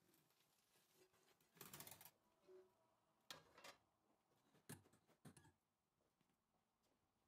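Near silence, with faint handling sounds of a nonstick pan being lifted off a baked börek on a wire cooling rack: a short scrape about one and a half seconds in, then a few faint clicks and knocks.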